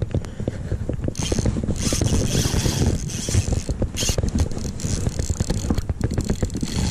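Spinning reel's drag clicking rapidly and without a break as a hooked salmon pulls line off the spool. It is close to the microphone, over a loud low rumble of wind and handling.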